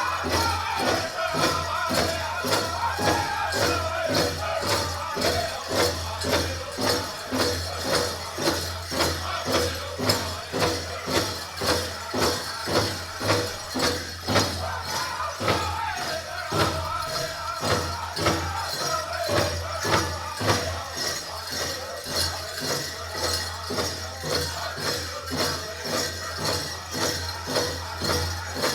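Powwow drum group singing over a steady, even beat of the big drum, the voices rising and falling in the song.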